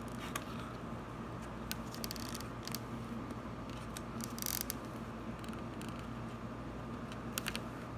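Small clicks and a few short scraping rasps of hands and a tool working feeder wires against a model railroad rail, over a steady low hum.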